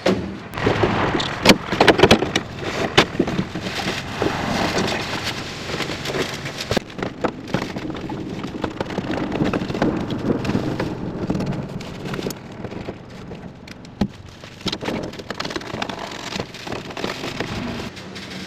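Continuous crackling and rustling broken by scattered sharp clicks and knocks.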